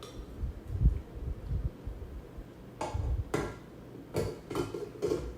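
A glass mixing bowl on a stand mixer being handled: a few dull low bumps, then about five sharp clicks and knocks in the last couple of seconds.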